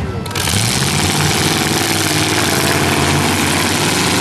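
Eight-cylinder demolition derby car engines running hard under load, their pitch rising and falling as the cars push against each other.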